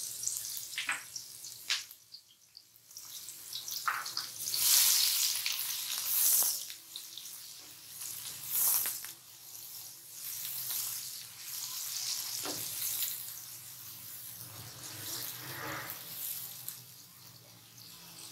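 Chopped onions sizzling in hot oil in an aluminium kadhai, with the scrapes of a slotted spoon stirring them every few seconds.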